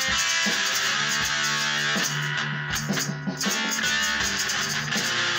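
Background music led by guitar, with held notes over a steady rhythm.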